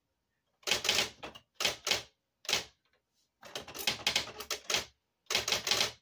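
Electric typewriter being typed on: quick runs of rapid key strikes, each run a second or less long, with short pauses between them.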